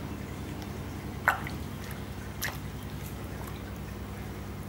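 A hand moving in a small plastic bucket of aquarium water to catch a fish: a few small splashes and drips, the clearest about a second in, over a steady low hum.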